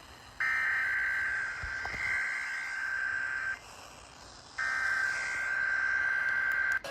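Two Emergency Alert System SAME header data bursts, each a harsh steady digital tone lasting about three seconds, with a second's pause between them. They carry the coded header of a Required Weekly Test alert.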